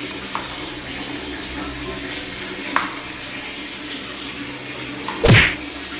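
Soapy water sloshing and squelching in a plastic basin as a helmet's foam padding is scrubbed and squeezed by hand, with a short click and a louder splash a little after five seconds.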